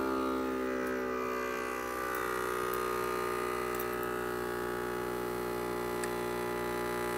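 Demco Stay-IN-Play DUO braking unit's electric air compressor running with a steady buzzing hum. It has been triggered by the pulled breakaway switch and is pressurising the cylinder that pulls the brake pedal down.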